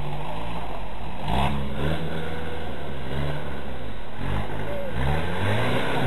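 Off-road Toyota 4x4's engine revving up and down several times, its pitch climbing and dropping as the throttle is worked on a rough trail.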